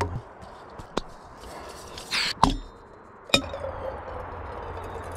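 Several sharp knocks of camp gear set down on a wooden picnic table. From about three seconds in, a steady pour of water from an insulated bottle into a small Jetboil cooking pot.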